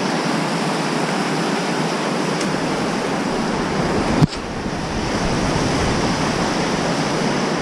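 Rushing whitewater of river rapids, a steady dense noise of water, with a single sharp knock about four seconds in.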